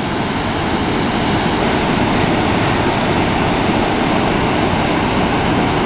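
Steady, continuous rush of Iguazu Falls' water pouring over the rocks, with the river at its low dry-season flow.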